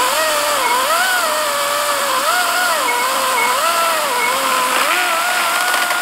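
Battery-powered 14-inch cordless chainsaw (Wild Badger 40-volt) whining under load as its chain cuts through a thick oak log, over the rasp of the chain in the wood. The motor's pitch dips and recovers about once a second as the cut bogs it down.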